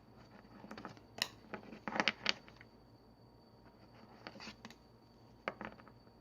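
Trading cards being handled and flipped through: faint sliding with a scattering of light clicks and taps, the loudest cluster about two seconds in.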